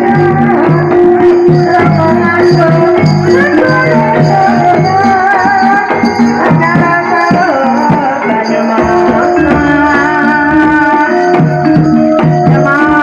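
Javanese gamelan music accompanying a kuda lumping dance: hand drums play busy rhythms over held, ringing notes from metallophones and gongs.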